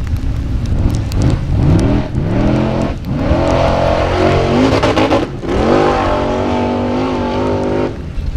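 Formula Offroad hill-climb buggy engine revving hard at full throttle on paddle tyres: the pitch sweeps up and holds at high revs, drops sharply about five seconds in, climbs again and holds, then cuts off near the end. Loose gravel and stones rattle over the engine noise.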